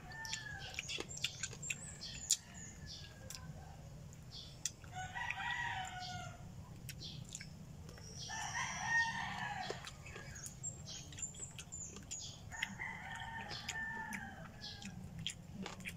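Roosters crowing in the distance: three long crows about five, eight and a half, and thirteen seconds in. Scattered small clicks from eating close by.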